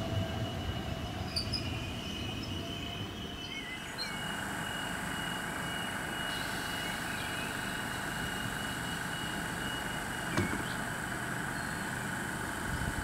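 A DART 8100-class electric multiple unit running away down the line, its rumble fading over the first few seconds. Then a DART 8100-class unit stands at the platform with a steady electrical hum and a thin high whine, with a single knock about ten seconds in.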